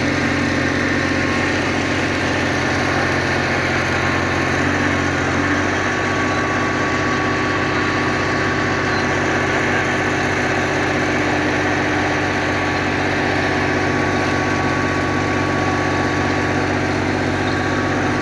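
Steady engine-like machine hum under a constant hiss, its low tones shifting slightly about five seconds in.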